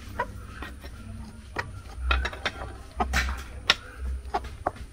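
Plastic scraper stirring dry flour in a glass bowl: irregular scrapes and clicks against the glass, busiest about two to four seconds in.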